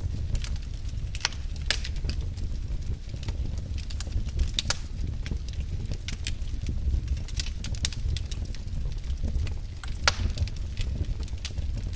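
Wood fire burning in a fireplace: a steady low rumble under irregular crackles and pops, with one louder pop about ten seconds in.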